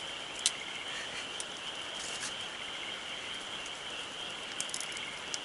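Wood campfire crackling, with a sharp pop about half a second in and more small crackles around two and five seconds, over a steady high-pitched chorus of insects.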